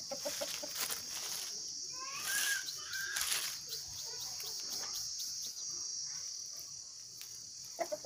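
Aseel rooster clucking: short low clucks near the start and again near the end, with a higher, wavering call about two seconds in. A steady high hiss runs underneath.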